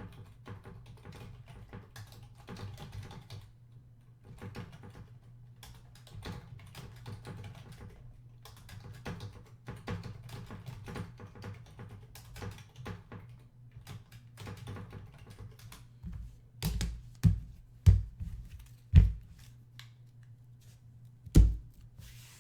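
Typing on a computer keyboard: a run of quick keystroke clicks with pauses, over a low steady hum. Four louder thumps come in the second half.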